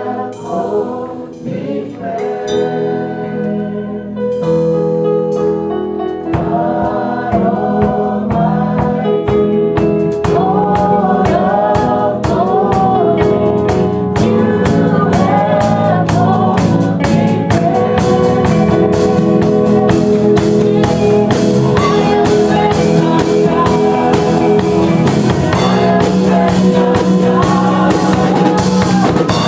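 Live gospel worship music: voices singing over a band, with a drum kit coming in about six seconds in and keeping a steady beat.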